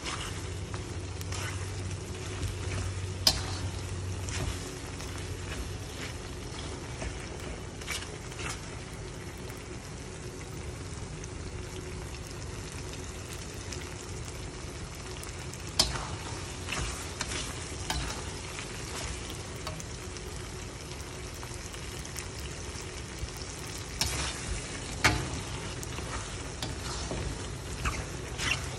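Beef-lung sambal in red chilli paste sizzling in a pan as it is stirred with a wooden spatula and cooked down to dry out its liquid. A steady frying hiss, with a few sharp knocks of the spatula against the pan.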